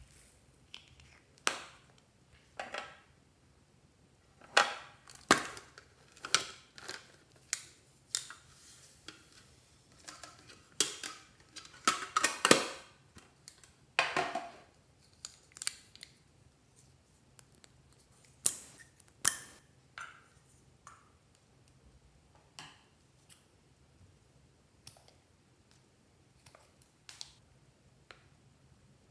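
Irregular clicks, taps and short scrapes of small hard-plastic toys and containers being handled and set down, with a few longer rustling passages.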